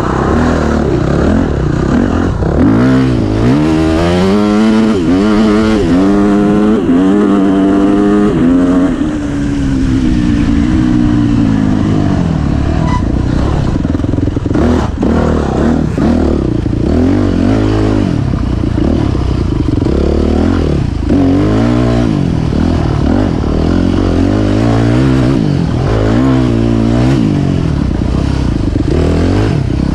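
Off-road dirt bike engine heard from on the bike, revving up and falling back again and again as the rider works the throttle over a rough trail, with clattering from the bike over the bumps.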